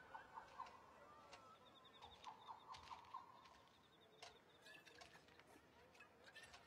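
Faint night-time countryside ambience: a creature's short chirps repeated in quick runs of four or five, a high buzzing trill twice in the first half, and scattered faint ticks.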